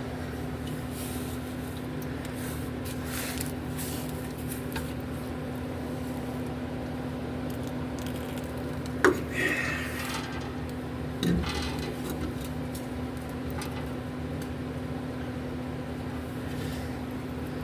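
Short spritzes of penetrating spray onto seized bolts, over a steady hum, with two sharp knocks a couple of seconds apart about halfway through.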